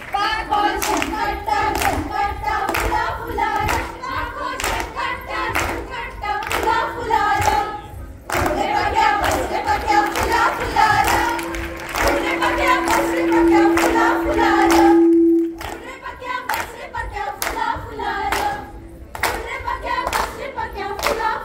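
Group of women singing a Goan fugdi folk song in unison to steady rhythmic hand clapping. About ten seconds in, the voices hold one long loud note for several seconds before the clapped song goes on.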